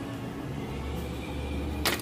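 Steady low background hum, with a single sharp click near the end.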